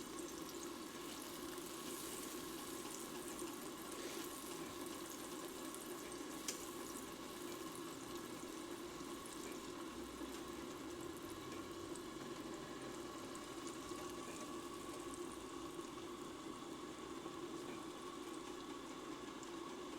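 Faint, steady sizzle of food frying on the stovetop: butter melting in a hot skillet, with potatoes frying in another pan.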